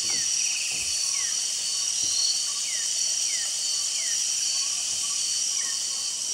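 Tropical rainforest insect chorus: a steady, shrill buzz at several high pitches, with short falling chirps repeating every half second to a second.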